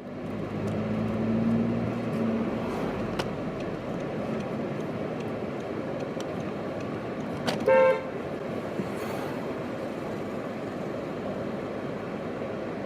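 Street traffic noise with a short car horn toot about eight seconds in.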